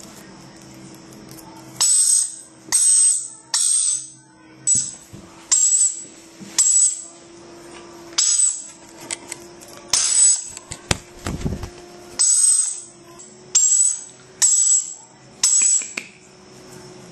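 Young Swainson's lorikeet giving a series of short, shrill screeches, about one a second, over a faint steady hum. A low thump comes about two thirds of the way through.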